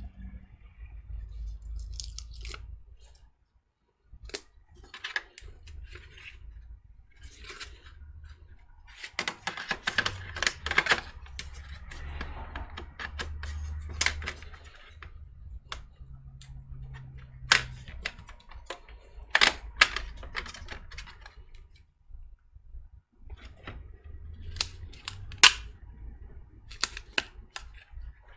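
Scattered sharp clicks, snips and rustles of hands working scissors and Velcro tape, irregular throughout, over a low hum.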